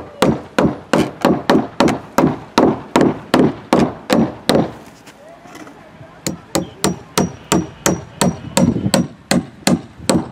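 Claw hammer driving nails into the wooden planking of a boat hull: quick, even blows about three a second, pausing briefly about halfway, then a second run. The later blows have a faint metallic ring.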